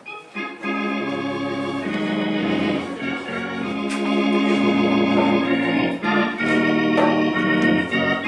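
Church organ, a Hammond-type electric organ, playing slow sustained chords as closing music that begins about half a second in.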